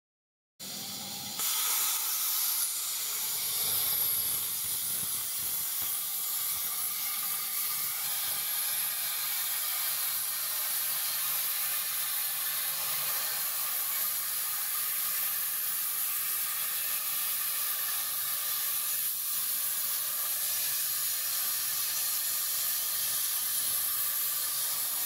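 LGK 200A air plasma torch on a CNC cutting table cutting 25 mm thick metal plate: a steady, loud hiss of the plasma arc. It starts suddenly about half a second in, grows louder a second later, and cuts off abruptly at the end of the cut.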